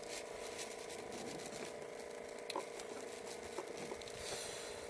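A faint steady hum with scattered light clicks and crackles over it.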